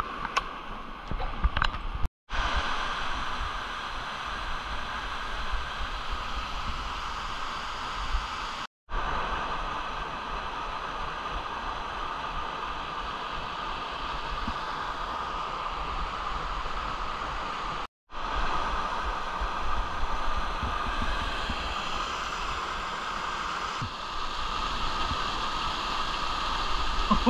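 Mountain stream rushing over rocks and small waterfalls, a steady rush of water that drops out for an instant three times.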